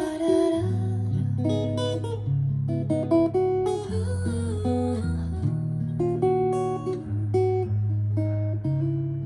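Instrumental break of a pop song played back through ProAc Studio 140 MK2 loudspeakers: plucked and strummed acoustic guitar over a steady bass line.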